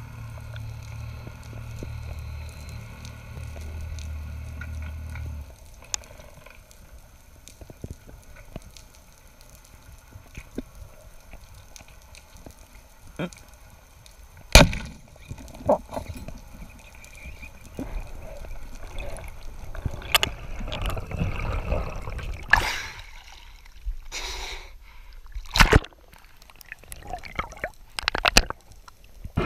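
Underwater sound on a speargun-mounted camera: a low steady hum for the first five seconds, then scattered clicks. About halfway through comes a single sharp, loud crack as the speargun fires at the yellowfin tuna, followed later by several loud bursts of rushing, bubbling water and sharp knocks.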